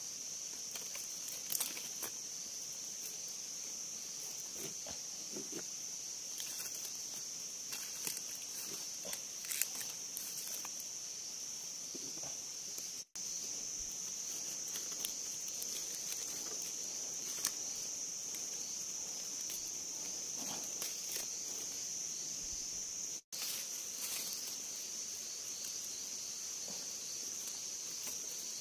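Steady, high-pitched drone of forest insects, with light rustling of dry leaves and small clicks of sticks and bark strips being handled. The sound cuts out for an instant twice.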